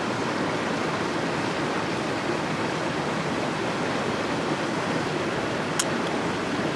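Shallow river running over stones: a steady rushing hiss of water, with one sharp click near the end.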